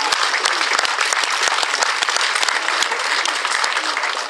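Crowd giving an ovation: steady, dense clapping.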